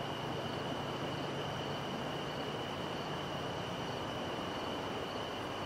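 Night insect chorus: a steady high-pitched insect drone with a faint, regularly pulsing chirp above it, over the even rush of a distant river.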